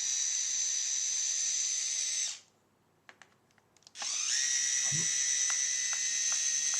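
Small electric screwdriver running in two spells with a steady high-pitched whine, backing out the keyboard screws from the underside of a Samsung N145 netbook. It stops about two seconds in and starts again after a pause of about a second and a half, with a few faint ticks during the second run.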